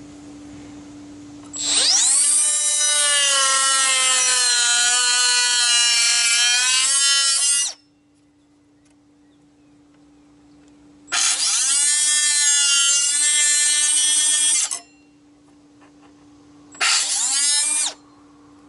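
Compact handheld cut-off tool fitted with a drywall, fiber cement and plastic wheel, cutting through a plastic dash bezel: three high-pitched whining runs, a long one, a shorter one and a brief one near the end, each spinning up quickly and its pitch sagging a little as the wheel bites.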